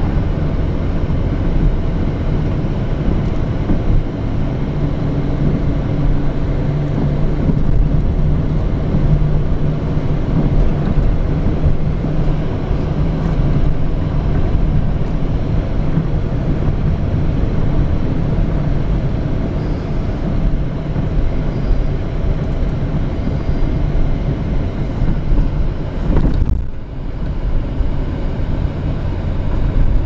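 Car cabin noise while driving on a paved road: a steady low rumble of engine and tyres, with a faint steady engine drone through the middle. The level dips briefly about three-quarters of the way through.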